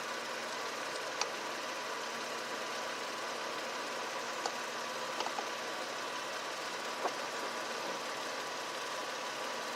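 A steady, engine-like running hum, with a few light, sharp clicks of a screwdriver working the distributor cap screws.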